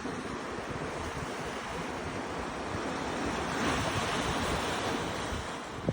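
Ocean waves washing onto a beach, one wave swelling up a little past halfway and then easing off, with wind rumbling on the microphone.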